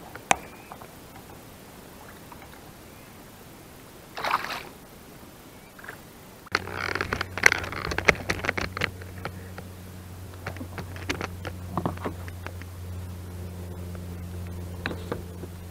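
Clicks, knocks and scrapes of fishing gear being handled aboard a plastic fishing kayak, with a short splash about four seconds in as a bass is let back into the water. From about six seconds in a steady low hum runs underneath.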